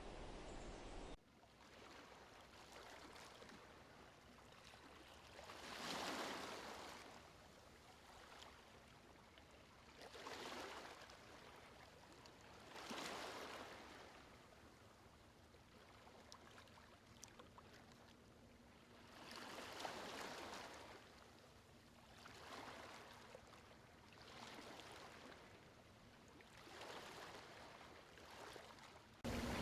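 Faint waves washing in and drawing back, swelling and fading every three to four seconds. A louder stretch of the previous sound cuts off abruptly about a second in, and a louder sound cuts in just before the end.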